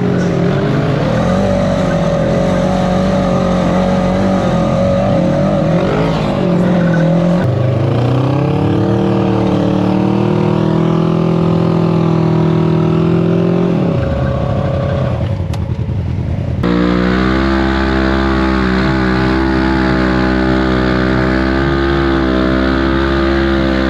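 Off-road vehicle engine running under load, climbing in pitch about eight seconds in and dropping away around fourteen seconds. A different, steady engine note starts abruptly about seventeen seconds in.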